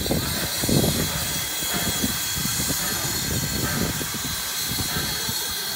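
Steam locomotive's escaping steam: a steady hiss over a low, uneven rumble.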